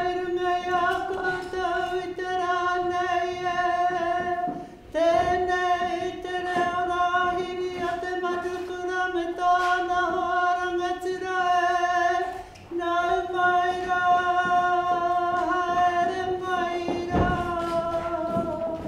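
A single voice chanting in long, steady held notes, in three drawn-out phrases with brief breaks about five seconds and twelve and a half seconds in.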